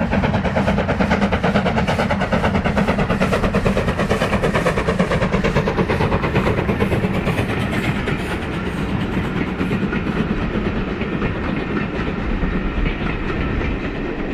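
Steam-hauled train running past, with a fast, even pulsing rhythm of exhaust and wheels on the rails.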